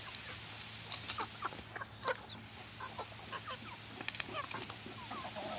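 Several chickens making short clucks as they peck food from a ceramic bowl of chopped greens, with scattered sharp clicks of beaks striking the bowl.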